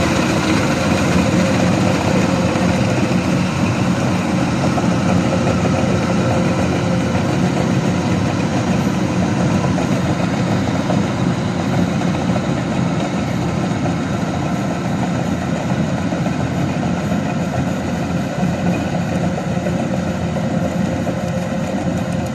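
Kubota rice combine harvester running steadily, a continuous heavy engine and machinery noise with no change in pitch or level.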